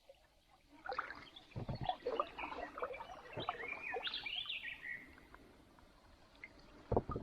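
A bird calling with whistled notes, the last sliding down in pitch about four seconds in. A few dull thumps come through it, one near the end.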